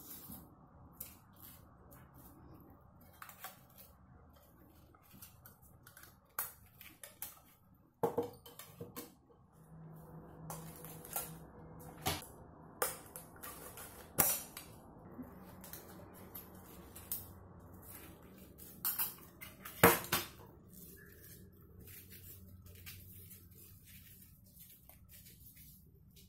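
Metal case and small metal parts of a 1960s Soviet flashlight clicking and clinking as it is handled and taken apart. Scattered light clicks and knocks, the loudest about eight seconds in and again about twenty seconds in.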